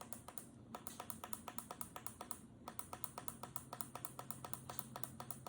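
Rapid run of short ticks from an alarm clock's buttons being pressed to step the minutes forward while setting the time, about nine a second, with a short break about two and a half seconds in.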